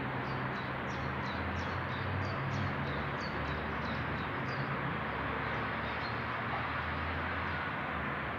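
A small bird chirping repeatedly, short high downward chirps about two or three a second, stopping a little past halfway. Under it, a distant lorry's diesel engine runs steadily amid general traffic noise.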